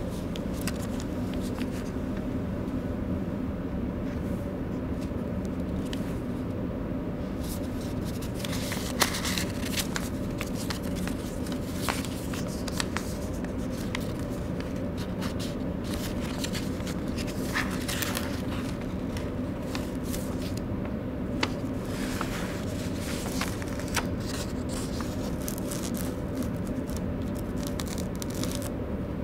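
A folded paper letter being unfolded by hand: crisp rustles, crackles and small snaps of the paper as its folds are opened and flattened. The sounds are scattered at first and come thick and fast after several seconds, over a steady low background hum.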